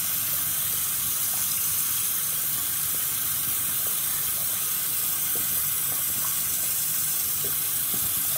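Cold tap water running steadily into a sink and splashing over a small resin 3D print turned in gloved hands, rinsing the isopropyl alcohol off the print.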